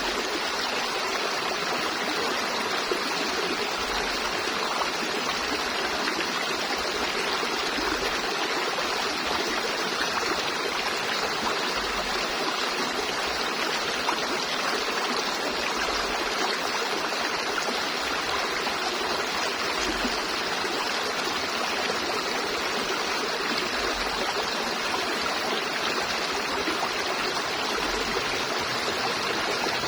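River water flowing and rushing over rocks, a steady even rush with no breaks.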